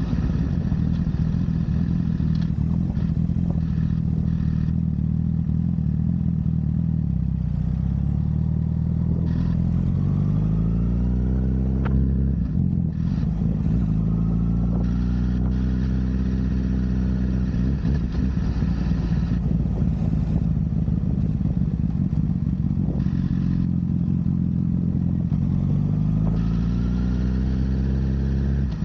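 Honda CBR1000RR inline-four engine running under way, mostly at a steady note. Its pitch rises as the bike accelerates about ten seconds in, again at about thirteen seconds, and near the end.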